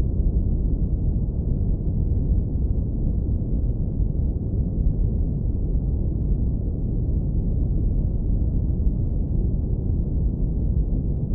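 Steady deep brown noise, low-pass filtered so that only a warm, deep rumble remains, with nothing in it but an even, unchanging hiss of the lowest frequencies.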